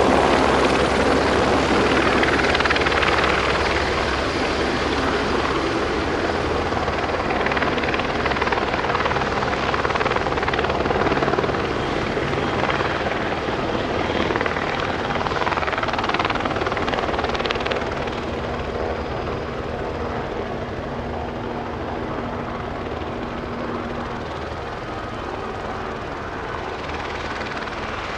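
Aerospatiale AS350B Ecureuil helicopter hover-taxiing low and settling onto its skids, with steady turbine and rotor noise that slowly grows quieter over the second half.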